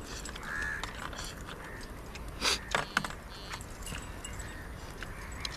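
Small clicks and clinks of people eating a meal by hand from plastic plates, with a few sharper knocks about two and a half to three seconds in.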